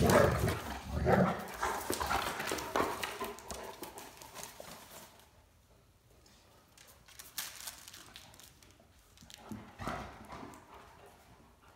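Great Danes' claws clicking and paws scuffling on a hard tile floor as they play, with knocks and thumps in the first few seconds, then fewer, scattered clicks of footsteps.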